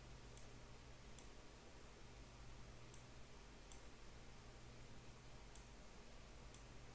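Near silence with a steady low hum and hiss, broken by faint computer mouse clicks: six short clicks in three pairs, a button press and release for each drag.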